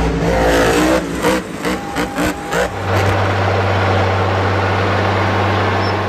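Monster truck engines revving, the pitch rising and falling in the first seconds, then running as a steady deep drone.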